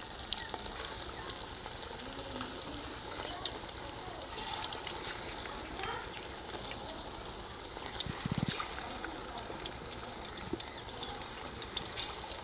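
Fish pieces deep-frying in hot oil: a steady sizzle with constant crackling pops.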